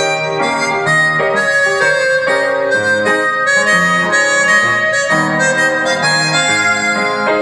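Harmonica playing a melody into a microphone, one held note after another, with the player's hands cupped around it.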